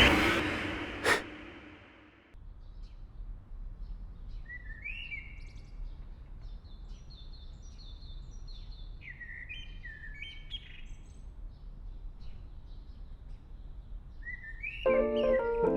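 Birds chirping in short bursts of quick notes against a low outdoor background. A siren fades out over the first couple of seconds, and music starts near the end.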